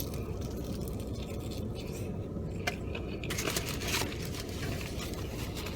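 Chewing and handling crunchy fried chicken: a few small crunches and scrapes, the busiest stretch about three to four seconds in, over a car's steady low hum.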